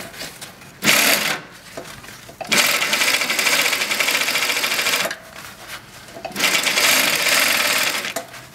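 AtlasUSA AT2150M zigzag cylinder-bed walking-foot industrial sewing machine, driven by a brushless servo motor, stitching a single ply of webbing. It runs in three spurts: a short one about a second in, a longer run of about two and a half seconds, then another near the end, each a rapid even clatter of stitches with quiet pauses between.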